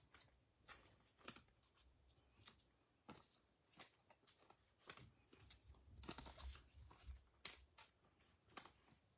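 Faint, scattered rustles and light clicks of trading cards being handled and laid down, one short sound every second or so.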